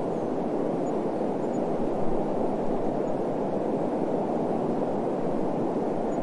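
Steady wind ambience: a low, even rushing with no gusts or distinct events.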